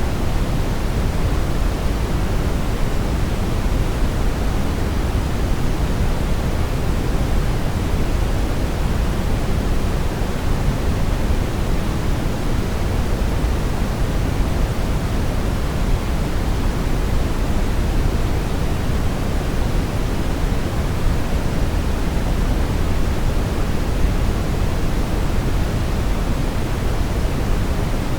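Steady brown noise: an even, deep rushing hiss with most of its weight in the low end, unchanging throughout.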